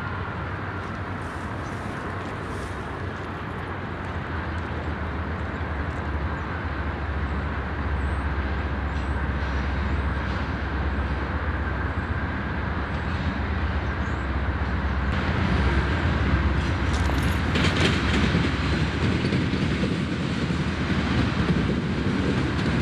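GE C40-8W diesel freight locomotives running as they approach, a steady low engine rumble that grows louder, with a brief clatter about three quarters of the way through.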